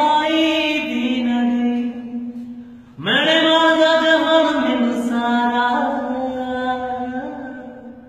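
A single voice singing long, held, chant-like notes. The first phrase fades out about two to three seconds in; a new phrase starts with an upward slide, holds, steps slightly down in pitch and fades near the end.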